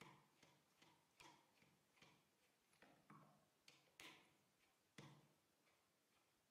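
Faint clicks and taps of a Phillips screwdriver turning the screws that hold a golf trolley's controller to its battery tray, about two or three a second, stopping about five seconds in.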